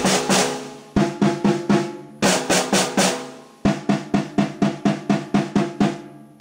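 Two marching snare drums played together with wooden sticks in a fanfare rhythm. Short clusters of sharp strokes with brief gaps give way, about halfway through, to a longer run of quick, even strokes.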